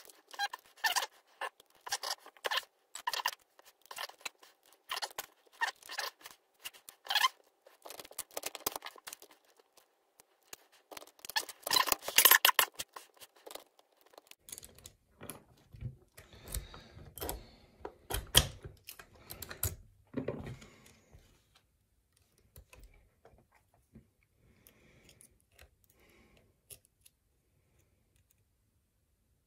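Lock picks working a Master Lock M1 padlock: rapid, irregular metallic clicking and scraping for about the first half, then duller knocks and thuds as the lock is handled, thinning out to a few faint clicks near the end.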